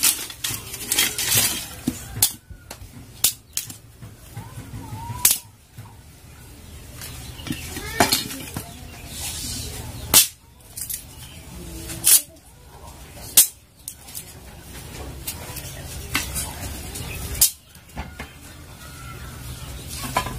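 Dry wooden sticks snapping as they are broken by hand for firewood: about nine sharp cracks at uneven intervals, with quieter rustling and scraping of twigs between.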